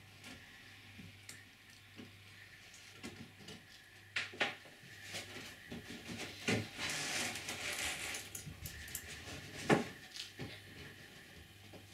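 Handling noise from fitting a glued spruce strip and hooking bungee cords across a strip-built kayak deck: scattered light clicks and taps, a rustling, rubbing stretch in the middle, and one sharp click near the end.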